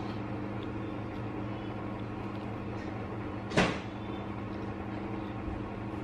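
A steady low mechanical hum from a household appliance motor, with one sharp tap or knock about three and a half seconds in.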